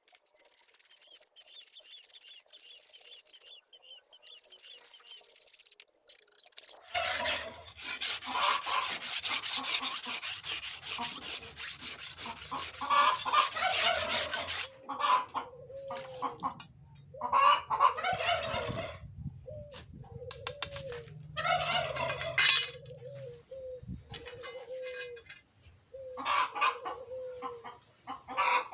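Fast, steady sanding strokes scrub rust off an old hand saw blade for several seconds, then go on in shorter bursts. Through the second half a chicken clucks repeatedly in the background.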